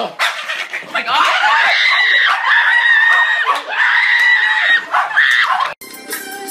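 A run of long, held, high-pitched screams, four or five in a row, broken off suddenly near the end by organ music.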